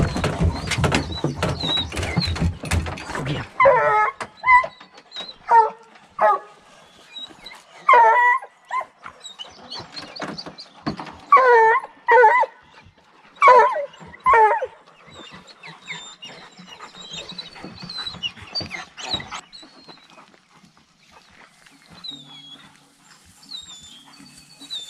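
A hound gives a dozen or so short, ringing barks in pairs and clusters over about ten seconds, opening on a very cold bear track. A few seconds of rushing, clattering noise come before the first bark.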